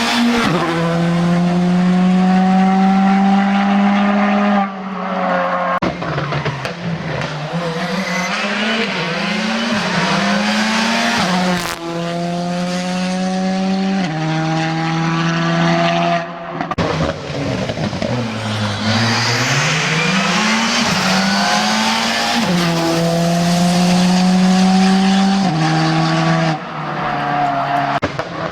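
Rally car engines driven hard on a stage, revving up and changing gear with repeated steps in pitch, lifting off and picking up again, with tyre squeal. One car pulls away from low revs with a long rising note about two-thirds of the way through.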